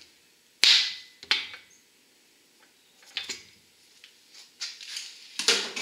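Ball-peen hammer striking the steel yoke of a newly installed axle-shaft U-joint, metal on metal: two sharp strikes about a second in, then a few lighter knocks. The strikes are meant to relieve binding in the freshly installed joint.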